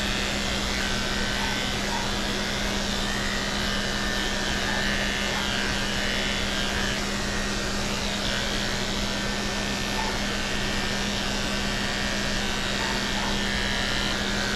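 Electric dog grooming clippers running steadily as they shear a Shih Tzu's coat, a constant unbroken hum.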